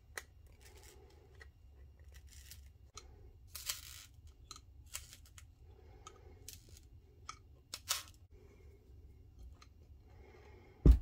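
Pointed tool prying and scraping between a cured epoxy resin bowl and the Corelle glass bowl form it was cast on, as the resin works loose from the form. Scattered faint clicks and scratches, with a sharp, louder crack near the end.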